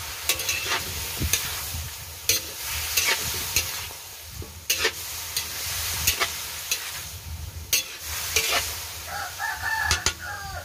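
Metal spatula stirring chicken feet in a steaming wok, scraping and knocking against the pan at irregular intervals over the sizzle of frying in soy sauce. A rooster crows near the end.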